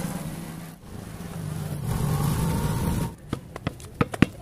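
Small motorcycle engine running as the bike moves off, for about three seconds. Then a basketball bouncing on concrete, several quick sharp bounces a second.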